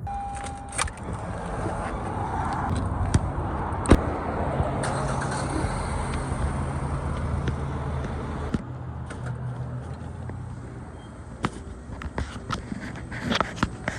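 A motor vehicle running with a steady low hum and road noise, louder for the first half, with scattered clicks and knocks.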